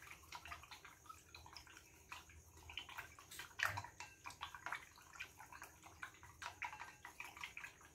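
Chopsticks stirring raw blood in a white ceramic bowl: faint, irregular sloshing of the liquid with light clicks of the chopsticks against the bowl. This is the blood being beaten with water to make tiết canh blood pudding.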